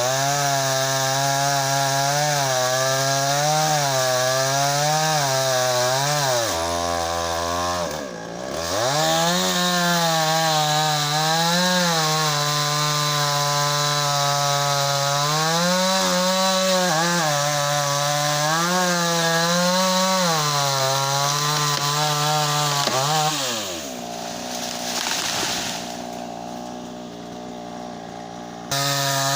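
Two-stroke chainsaw engine running, its throttle opened and eased off again and again so the pitch rises and falls. It drops low about seven seconds in and again near the end before picking back up.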